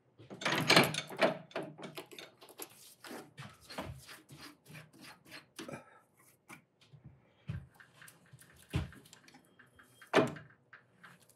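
Metal tools and lathe parts being handled and set down, a run of clinks and knocks, heaviest in the first second and a half, with another sharp knock near the end.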